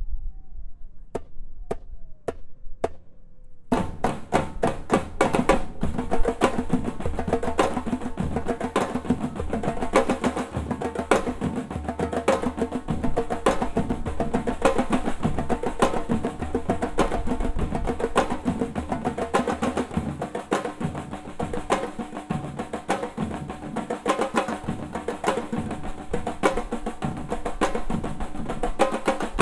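A percussion ensemble of drummers playing a funk rhythm. A few sharp isolated clicks come first, like a count-in. About four seconds in the whole group comes in together and keeps up a dense, steady drum groove.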